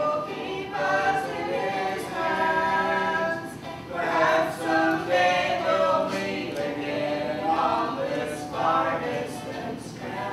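A small group of voices, a woman's among them, singing a hymn-like song unaccompanied in long held notes that step from pitch to pitch over several phrases.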